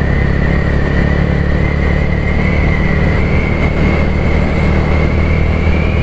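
Motorcycle engine running as the bike rides along and gathers speed, with a thin high whine that climbs slowly in pitch, over a steady rush of road noise.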